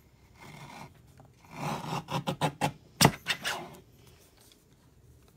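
Fiskars paper cutter's blade being drawn through a pair of printed paper sheets. A faint rasp comes about half a second in, then a louder run of quick scraping strokes from about a second and a half in, with one sharp click in the middle.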